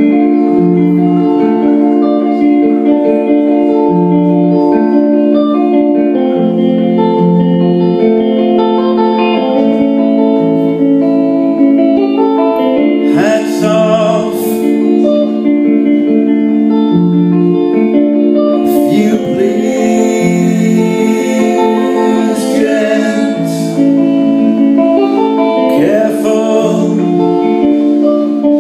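Live rock band playing: electric guitars ringing out long held chords over a drum kit, with a few crashes about 13, 19 and 26 seconds in.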